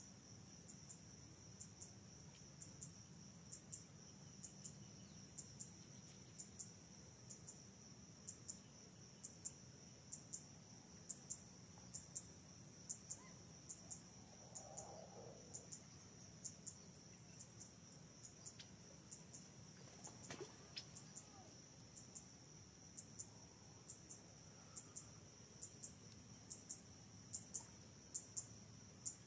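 Faint, steady high-pitched insect chorus with a regular ticking pulse running through it. A brief faint call sounds about halfway through, and a single click follows a few seconds later.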